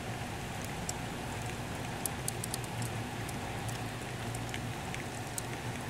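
Steady rain falling during a thunderstorm, with individual drops ticking sharply now and then.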